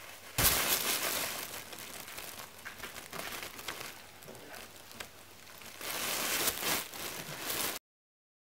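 Crinkling rustle of material being moved about, with a few sharp clicks, starting suddenly about half a second in; it cuts off abruptly near the end.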